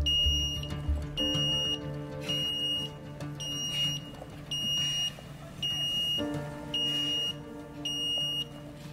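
Truck reversing alarm beeping steadily, one half-second beep about every second, over a diesel truck engine running, which gets louder about six seconds in.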